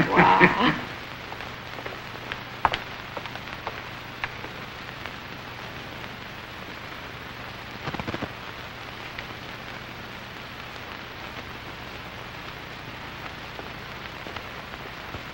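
Steady hiss and low hum of an old film soundtrack, with a few faint clicks and a short rustling knock about eight seconds in.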